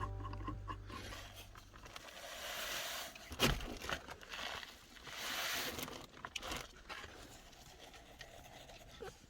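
Faint rustling and crinkling handling noise in two swells, with a sharp knock about three and a half seconds in, as the tail of background music fades away at the start.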